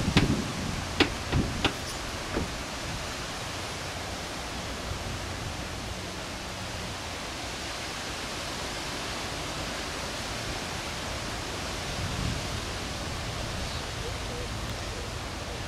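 Intermodal freight train cars rolling past, a steady rushing noise of steel wheels on rail. A few sharp clacks come in the first couple of seconds.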